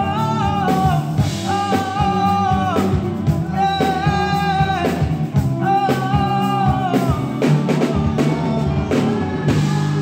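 Live band playing a song: a singer's voice carries the melody over a drum kit and guitar.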